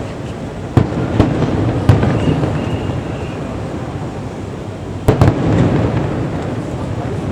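Aerial fireworks shells bursting: three separate bangs in the first two seconds, then a quick cluster of bangs about five seconds in, over a continuous rumble of further bursts.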